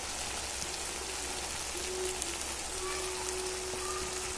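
Onions and tomatoes frying in oil in a wok, a steady, even sizzle under a layer of just-added sambar powder.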